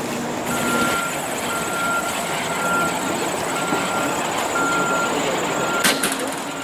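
Chairlift machinery running steadily at the top station. A short electronic beep starts repeating about once a second about half a second in, and there is a single sharp click near the end.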